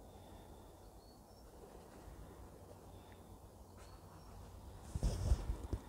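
Quiet pause of room tone with a steady low rumble and a few faint, short high chirps. Near the end comes a brief burst of low rustling and thumping, like someone moving near the microphone.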